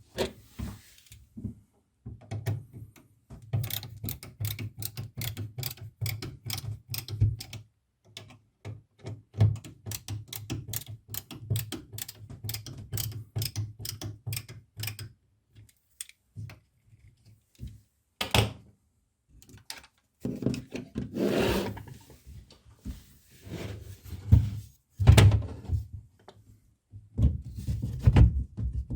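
Quick runs of clicks and knocks from hand work fitting a magnetic door catch to a wooden bath panel, with several louder thunks and scraping bursts in the second half.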